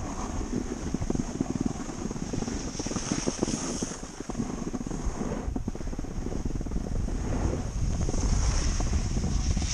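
Wind buffeting a helmet- or body-worn action camera's microphone during a ski descent: a steady, fluttering low rumble, with skis scraping over groomed snow underneath.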